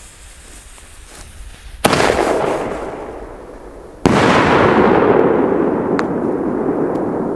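Aerial firework shell: a sharp bang as it is launched about two seconds in, then a louder bang as the shell bursts about four seconds in, its echo rolling on and slowly fading. A small crack comes near the end.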